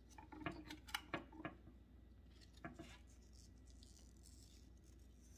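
Small handling noises from a ceramic elephant planter being turned in gloved hands: about five light clicks and taps in the first three seconds, then near silence.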